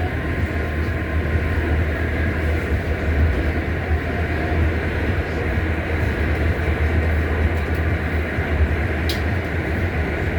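R68 subway car running steadily on the rails: a continuous deep rumble of wheels and traction motors with a faint steady hum, and one short click about nine seconds in.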